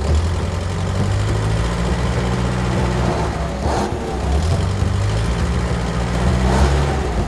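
A vehicle engine running steadily with a low, even hum, its pitch shifting slightly. A brief higher sound comes about halfway through.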